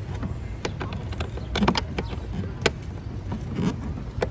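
Irregular clicks and knocks of plastic engine-bay parts being unclipped and handled, the sharpest about halfway through, over a steady low rumble.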